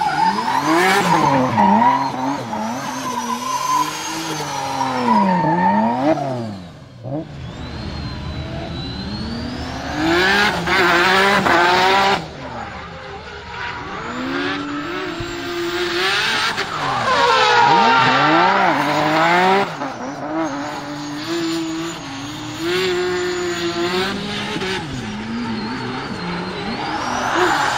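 BMW E36 drift car's engine revving hard, its pitch swinging up and down again and again as the throttle is worked through the slides, with tyre squeal. There is a short lull about seven seconds in.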